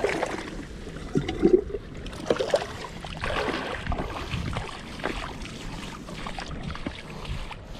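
Water splashing and sloshing, with irregular knocks and rustles of handling.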